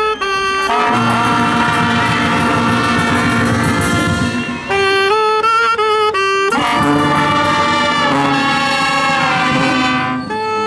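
Marching show band's brass and saxophones playing: short punched chords, then two long, full held passages with more short stabs between them, over drums and cymbals keeping a steady beat.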